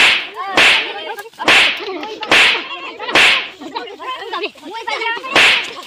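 Six sharp, whip-like cracks of a wooden stick striking a person, roughly one a second with a longer gap near the end. Between the blows a man cries out.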